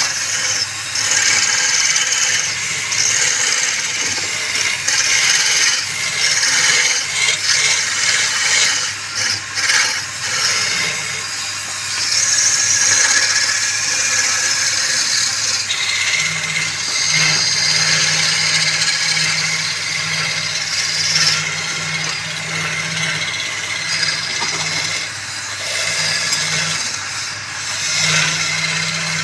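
Wood lathe running with a steady motor hum while a turning tool cuts the spinning wood, a scraping hiss that swells and fades as the tool works.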